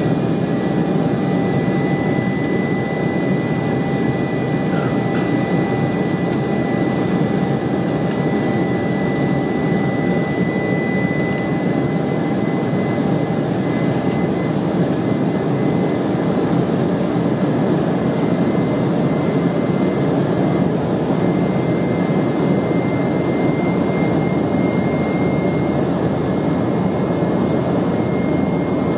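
Cabin noise inside an Embraer E190 airliner in its climb: the steady rush of its two GE CF34-10E turbofan engines and airflow, with a thin high whine held on a constant pitch over it.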